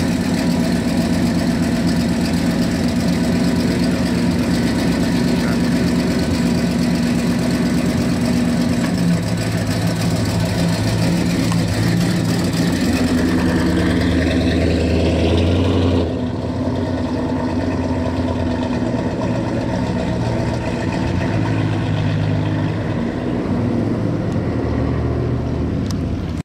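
1969 Chevrolet Chevelle SS 396's big-block V8 idling steadily, climbing in pitch as it is revved about twelve seconds in, then dropping back a little quieter to idle from about sixteen seconds.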